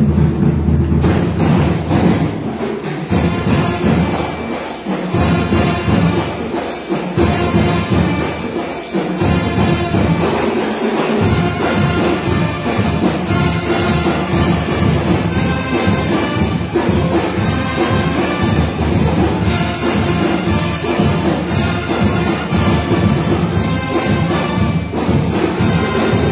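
Live school marching band playing: trumpets, saxophones and a sousaphone over a steady drum beat, with the horns coming in fully about a second in.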